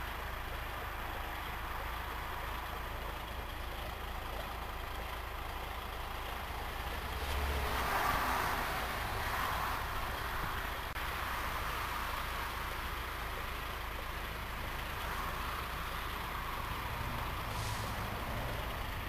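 Steady traffic noise from autobahn vehicles, swelling once as a vehicle passes about eight seconds in.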